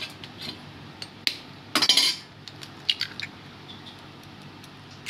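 A metal utensil clinking and scraping against a stainless-steel bowl: several sharp clicks and one longer, louder scrape about two seconds in.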